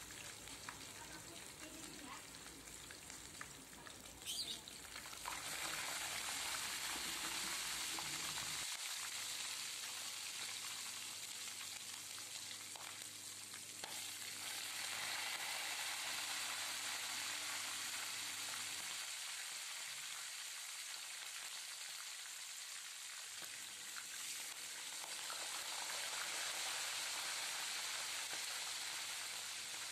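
Boiled chicken pieces deep-frying in hot oil in a wok: a steady bubbling sizzle that gets louder about five seconds in. A brief sharp noise sounds just after four seconds.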